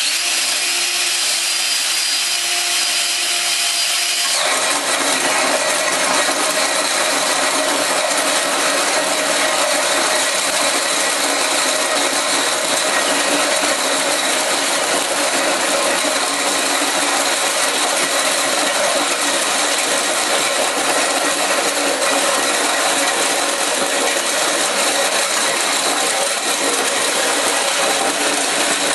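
DeWalt XRP 18V cordless drill driving a Blue Boar 6-1/4-inch carbide-tipped (TCT) self-feed hole saw through 3/4-inch plywood: the drill's motor whine with the steady grinding of the saw teeth cutting wood. About four seconds in the cutting noise grows fuller, then runs steady.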